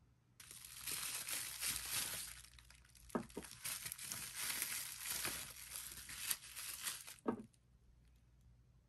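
Plastic bubble wrap crinkling as it is unwrapped from a small glass bottle by hand, with a few sharp clicks among the crackle. It starts about half a second in and stops with a click well before the end.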